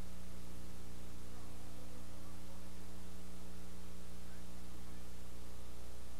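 Steady electrical mains hum with a few higher overtones over a constant hiss: a soundless stretch of the footage, with no game sound.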